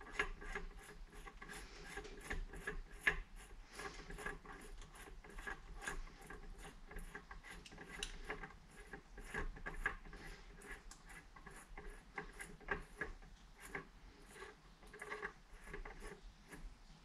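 Rear coaster-brake hub of a 16-inch kids' bicycle being turned by hand as its shaft threads back into the hub: faint, uneven clicking, about four clicks a second, with parts rubbing.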